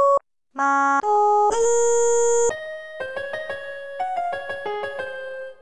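Electronic keyboard-like music: after a short break, a few loud steady held notes, then a softer melody of shorter notes that fades out near the end.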